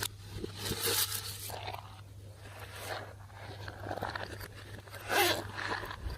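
Slime being squished and stretched by hand, giving sticky crackling and tearing noises in irregular swells, the loudest about five seconds in.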